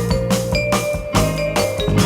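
Recorded music without singing: a steady drum beat of about two beats a second with bass and other instruments.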